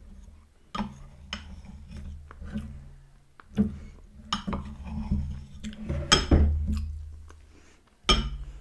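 Metal spoon scraping and clinking against the inside of a glass mug while scooping soft, melted ice cream, with several sharp clinks, over a low steady hum.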